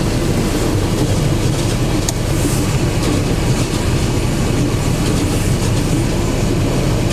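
Renault Duster's washer pump running steadily to prime the rear washer line until the fluid comes through, heard inside the cabin as a steady hum.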